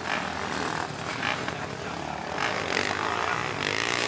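Racing quad (ATV) engines running on a dirt motocross track, their pitch rising and falling as the riders work the throttle.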